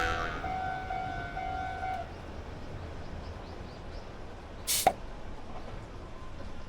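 Railroad crossing warning bell ringing in quick repeated tones, stopping about two seconds in. About five seconds in, a short swoosh sound effect with a falling pitch.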